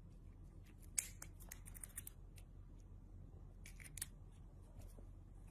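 Faint, sharp little clicks over quiet room tone: one about a second in, a quick run of ticks just after it, and two more near four seconds.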